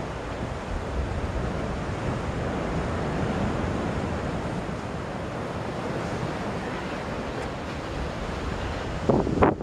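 Wind blowing across the microphone over choppy water, a steady rushing noise, with a few louder buffets near the end.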